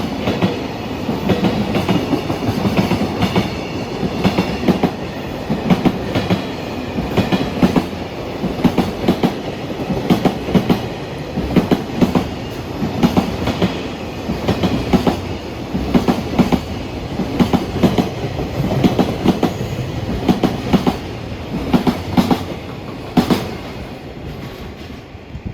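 Freight train's container wagons rolling past at speed, the wheels giving rhythmic clickety-clack over the rail joints with a steady rumble underneath. Near the end the clacking fades as the train's tail moves away.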